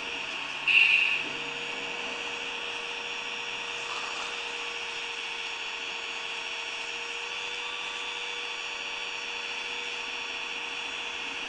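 Small electric motors and gears of a radio-controlled 1/16 scale model excavator whining steadily as it works, with a short louder burst about a second in.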